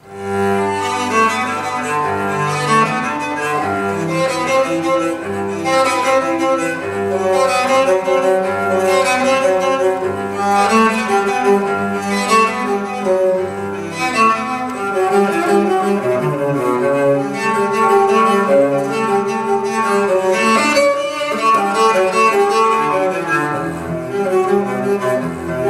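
Classical music for bowed strings, with a cello prominent, played back from an LP over a hi-fi system at a steady, fairly loud level.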